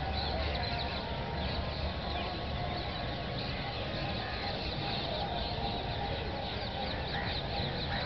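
Many birds chirping at once: a dense chatter of short, high, overlapping chirps, over a low steady rumble.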